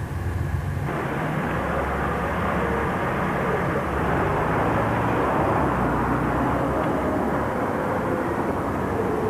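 Steady engine and motion noise of a vehicle running, coming in suddenly about a second in and holding steady.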